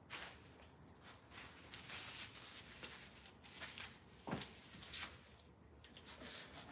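Faint scuffs, rustles and a few light knocks of a person walking up and crouching down: footsteps and clothing rustle.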